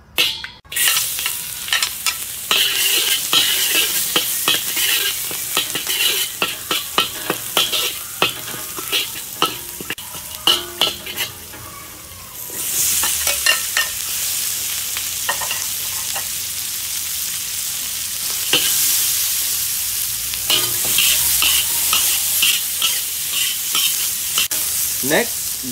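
Chopped garlic sizzling in hot oil in a steel wok, with a metal spatula scraping and clacking against the pan. About halfway through, sliced peppers and onion go in and the sizzle gets louder as they are stir-fried.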